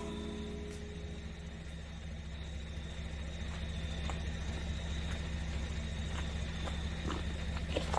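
Vehicle engine running steadily at idle, a low even hum with a few faint ticks over it.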